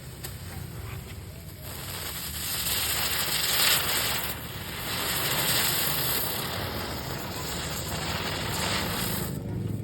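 Firework spraying sparks: a steady hiss that starts about two seconds in, swells, and cuts off near the end.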